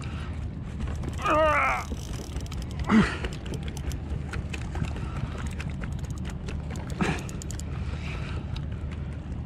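Large spinning reel and rod being worked: a run of small mechanical clicks, a short creak about a second and a half in, and brief louder sounds about three and seven seconds in, over a steady low rumble.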